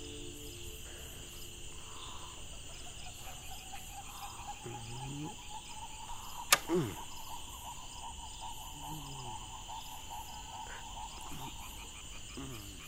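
Night ambience of insects, crickets chirping steadily, with a low call every four seconds or so. A single sharp click about six and a half seconds in is the loudest sound.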